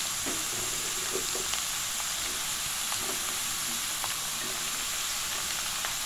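Snake gourd strips sizzling in hot oil in a karahi, a steady hiss, with a few light taps as a spatula stirs them.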